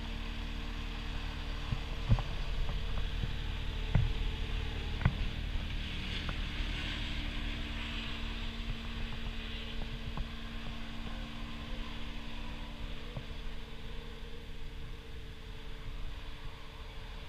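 Cat 279D compact track loader's diesel engine idling steadily, with a few short knocks about two, four and five seconds in.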